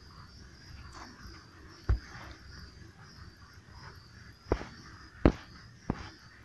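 Insects chirping steadily in the background, a high pulsing sound. Four sharp knocks cut through it, one about two seconds in and three in the last two seconds, louder than the chirping.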